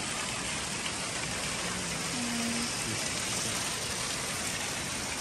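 Steady splash of a water spout pouring from the wall into a nearly empty tiled pool, the stream landing in the shallow water at the bottom.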